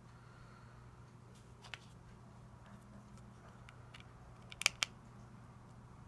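Plastic LEGO pieces clicking lightly as they are handled, then a sharp double click a little past halfway as a brick is pressed onto a LEGO plate and snaps in place.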